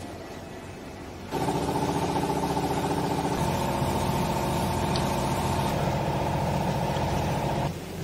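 A machine motor starts abruptly about a second in and runs loudly and steadily for about six seconds, then cuts off suddenly near the end, over a low steady hum.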